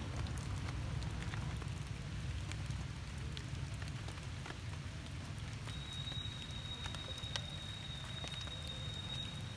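Light rain pattering, an even hiss dotted with small clicks, over a low rumble on the microphone. A thin, steady high tone comes in about halfway through and holds.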